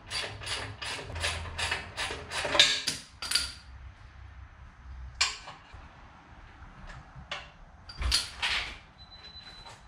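A quick run of sharp metallic clicks and knocks, about three or four a second, for roughly three and a half seconds. Then a few single knocks and clatters, and a faint steady high tone near the end. These are tools and hardware being handled while a fog light is fitted under a Jeep Wrangler's front bumper.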